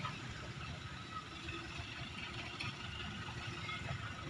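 Concrete mixer trucks' diesel engines running at a distance: a low, steady rumble.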